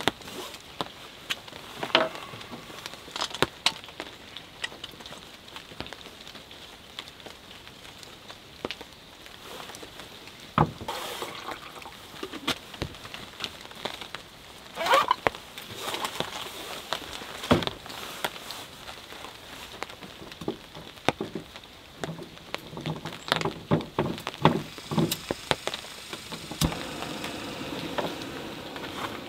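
Light clinks, taps and rustling of camp cooking gear and a plastic bag being handled on a pickup tailgate while coffee is made. A low steady hum joins in about three-quarters of the way through.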